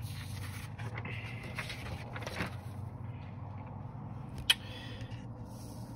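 Low steady room hum with faint rustling and one sharp click about four and a half seconds in: handling noise from a phone being moved over sheets of paper notes.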